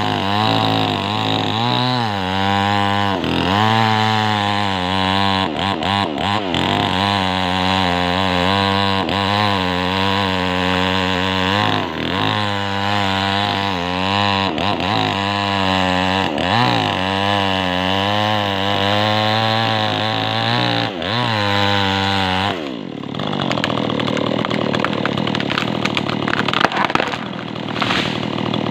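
Small two-stroke chainsaw cutting through the trunk of a rubber tree, its engine note wavering up and down as it labours and picks up in the cut. About 22 seconds in the engine note drops sharply and a rougher, noisier sound takes over.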